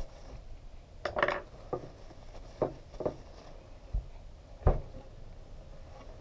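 Clinks and knocks of metal motorcycle front-fork parts being handled while the fork tube is wiped with a rag: about half a dozen sharp taps spread through, the loudest a little under five seconds in.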